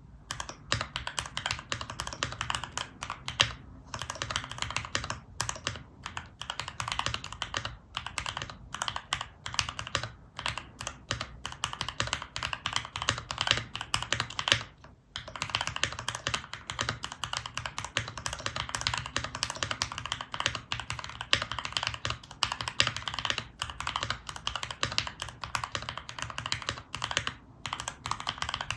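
Continuous fast typing on a mechanical keyboard with lubed and filmed Cherry MX Nixie switches, an FR4 plate and foam dampening, a dense run of keystrokes with a couple of brief pauses.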